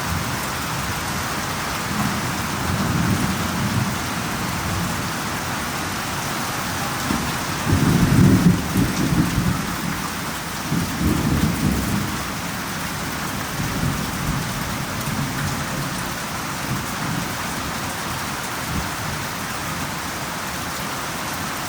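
Steady heavy rain falling, with rolling thunder rumbling under it: a low swell a couple of seconds in and a louder, longer rumble near the middle that fades out.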